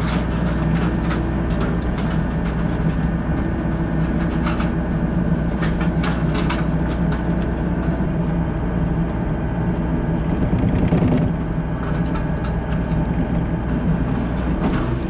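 Excavator's diesel engine running steadily under load, with scattered metallic clanks and rattles from sheet-metal barn roofing tin being handled by the machine.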